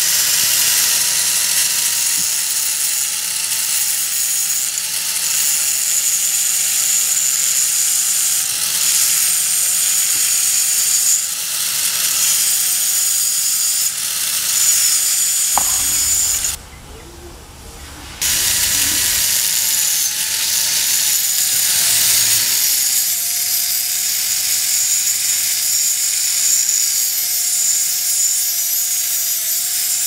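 Angle grinder with a thin cut-off disc running and cutting into the metal frame of a seat belt retractor, its motor pitch sagging and recovering as the disc bites. The sound drops away for a moment just past halfway, then the cutting resumes.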